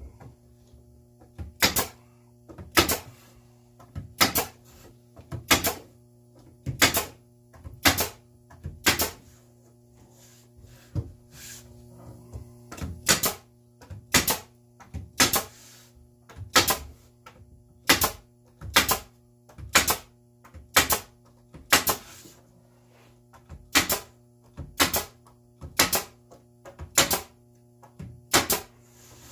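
Pneumatic brad nailer driving nails into plywood, one sharp shot about every second with a short pause midway, over a steady low hum.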